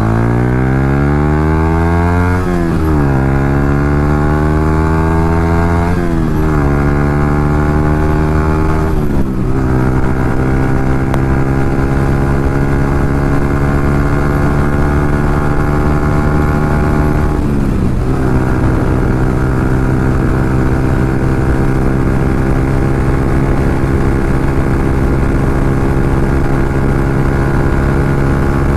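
Yamaha MT-15's single-cylinder engine through an SC Project aftermarket exhaust, accelerating hard. The pitch climbs and drops sharply four times as the rider shifts up through the gears, then holds a steady high pitch at speed.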